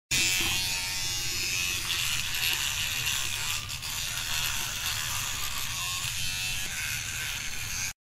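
Steady electronic buzzing hum with a hissy edge, the sound design of an animated logo intro, stopping abruptly at the very end.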